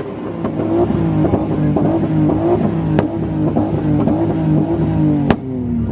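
Car engine held high on a two-step launch-control rev limiter, crackling steadily, with two sharp backfire bangs, about three seconds in and again near the end, as the exhaust shoots flames.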